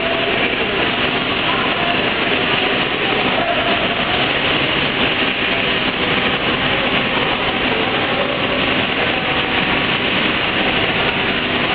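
Automatic roti-making production line running: its electric drive motors, rollers and conveyors make a loud, steady mechanical noise with no pauses.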